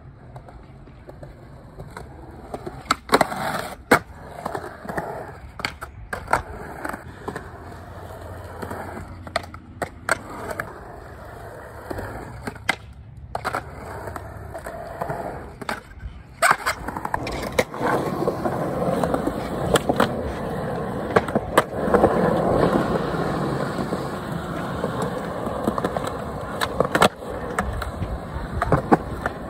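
Skateboard wheels rolling on concrete, broken by sharp clacks as the board is popped and lands. The rolling gets louder and rougher from about halfway on.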